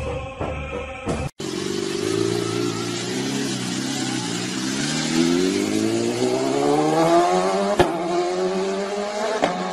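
A motor vehicle engine running and then accelerating, its pitch rising steadily over about five seconds. A single sharp click comes near the end.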